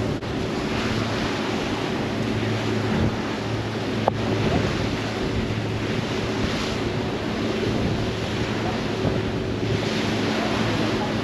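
Wind rushing over the microphone and water rushing past a ferry, over the steady low drone of the ferry's engines. A single sharp click about four seconds in.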